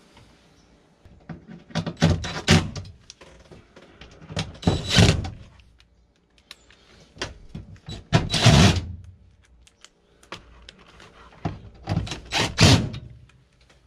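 Knocks and rattles from handling a cordless driver and screws at a sheet-metal breaker panel, in four short clattering bunches a few seconds apart.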